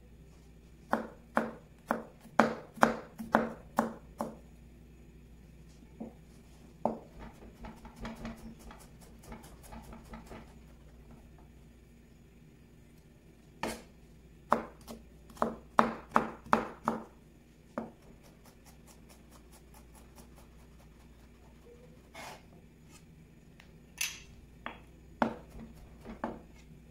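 Chef's knife chopping garlic on a plastic cutting board: quick runs of sharp knocks on the board, with pauses between them and a few scattered strikes near the end.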